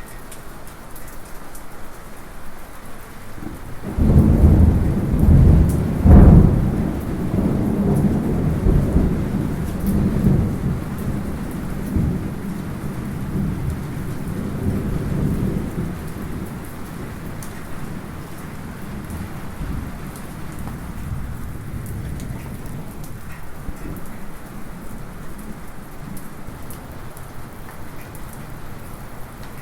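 Light rain falling steadily. A few seconds in, a thunderclap breaks suddenly, peaks a couple of seconds later and rumbles away over about the next ten seconds, leaving the rain.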